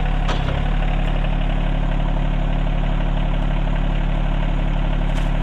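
Rural King RK24 compact diesel tractor engine idling steadily, with one brief knock about half a second in.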